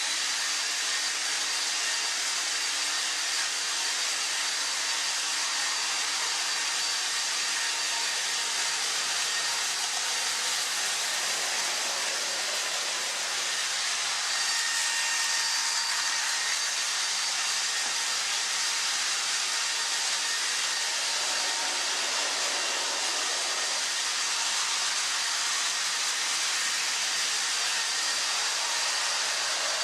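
Battery-powered Plarail toy trains running on plastic track: a steady whirring hiss from their small motors and plastic wheels, with faint steady whine tones over it.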